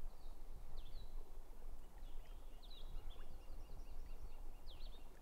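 Small birds chirping and calling, with a quick run of short high calls through the middle, over a steady low outdoor rumble.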